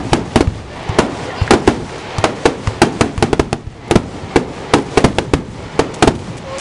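Fireworks display: aerial shells bursting in a rapid, irregular barrage of sharp bangs, about three a second, with a brief lull a little past halfway.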